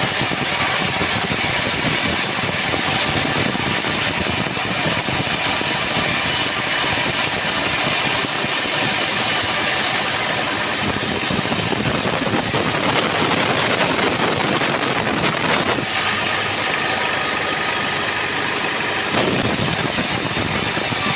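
Homemade band sawmill running, its engine droning steadily while the band blade cuts through a trembesi log.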